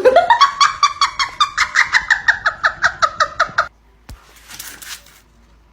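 An animal's rapid run of short, high-pitched calls, about six or seven a second, rising at the start, then breaking off suddenly after about three and a half seconds.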